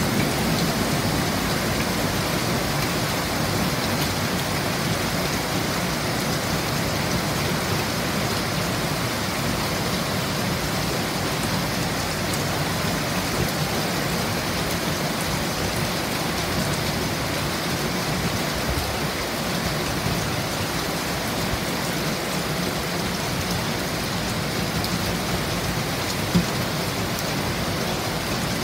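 Heavy rain falling steadily, a dense even hiss, with one short sharp tap about 26 seconds in.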